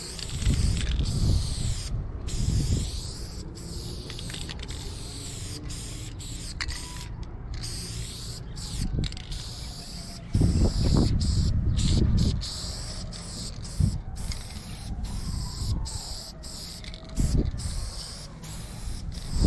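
Aerosol spray-paint can hissing in short and longer bursts, broken by brief stops, as black outline lines are sprayed onto a wall. Loud low rumbles come in about a second in, for about two seconds around ten seconds in, and briefly near the end.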